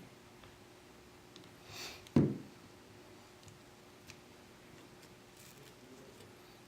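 Handling of a phone and plastic pry tools on a workbench: faint light clicks and ticks, a short scrape just under two seconds in, then one sharp knock.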